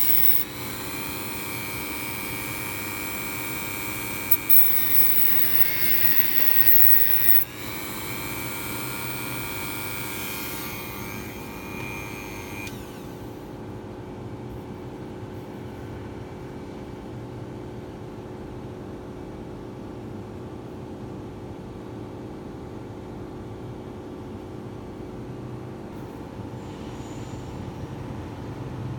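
Small rotary tool spinning a thin cutting disc while the end of a safety-pin wire is ground against it, with brief louder scrapes about four and seven seconds in as the motor's pitch dips under the load. The tool stops about halfway through, leaving a steady low hum.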